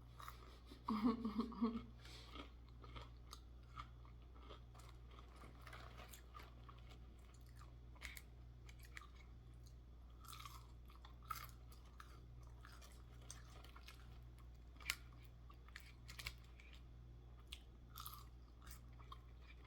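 A person chewing crunchy fried food close to the microphone: scattered crunches and wet mouth clicks, with a short voiced murmur about a second in. A steady low hum runs underneath.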